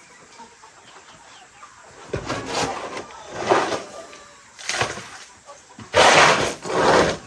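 Chickens clucking and squawking, in a series of loud, harsh calls that start about two seconds in, the loudest near the end.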